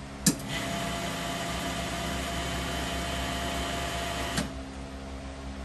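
Alpha Vac vacuum packaging machine mid-cycle: a sharp click, then a steady hiss of air for about four seconds, cut off by another click, over the machine's steady low hum.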